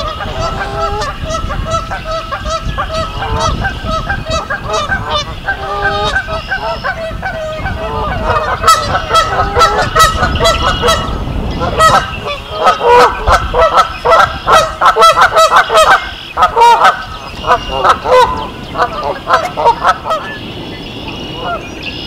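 A flock of Canada geese honking, many calls overlapping. The honking grows louder and denser about halfway through, then thins out near the end.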